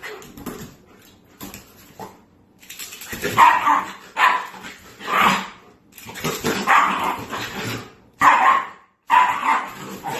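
Shiba Inu dog barking excitedly in play, about six sharp barks starting around three seconds in after a quieter opening.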